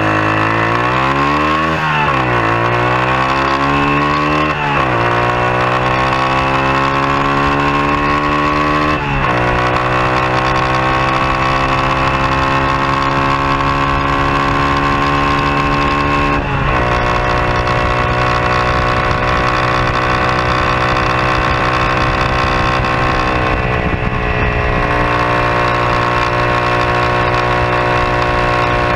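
KYMCO CK1 125's single-cylinder four-stroke engine accelerating hard through the gears. The pitch climbs in each gear and drops at four upshifts: at about 2, 5, 9 and 16 seconds in. In fifth gear it then climbs only slowly, near top speed.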